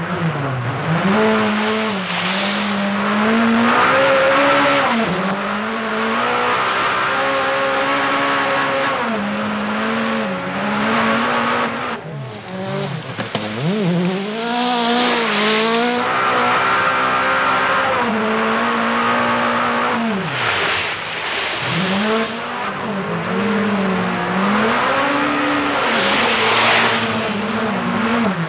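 Peugeot 405 Turbo 16 GR's turbocharged four-cylinder rally engine at full throttle, its pitch dropping and climbing again every few seconds between lifts and gear changes. Tyres sliding on loose gravel add bursts of hiss, loudest about halfway through and near the end.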